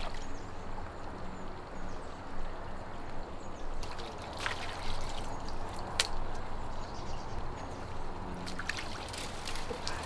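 Shallow pond water splashing and dribbling as it is struck with a stick, with sharper splashes about four, six and nine seconds in, the loudest at six.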